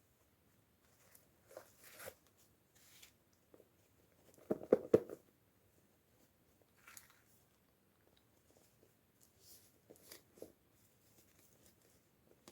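Hands handling toy packaging in a quiet unboxing: scattered plastic crinkling and light clicks, with a quick cluster of sharp knocks and clicks about halfway through.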